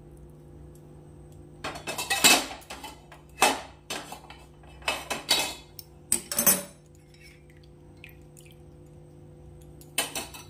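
Steel tea strainer, steel plate and ceramic cup clattering together as freshly strained tea is handled: bunches of sharp clinks and knocks over about five seconds, then a single clink near the end, over a faint steady hum.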